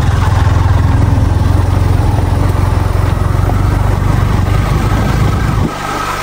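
Motorcycle engine running on the ride, a steady pulsing rumble that drops to a quieter, lower note near the end as the throttle eases off.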